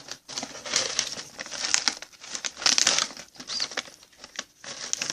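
Plastic snack bag of crispy banana chips being opened and handled: irregular crinkling and rustling of the packaging.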